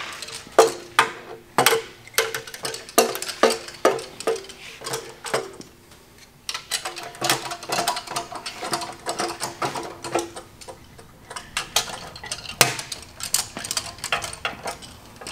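Hand ratchet clicking in short runs and metal tools clinking as the oil pan bolts are worked loose on a 440 big-block engine; some clinks ring briefly.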